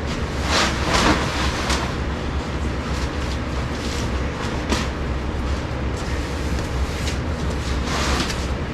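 Nylon tent rain fly rustling and swishing in a few brief bursts as it is handled and pulled over the tent, over a steady low rumble.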